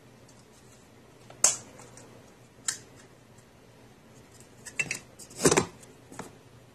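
A few sharp clicks and clatters of small hard objects being handled: one click, another about a second later, then a quick run of clatters near the end.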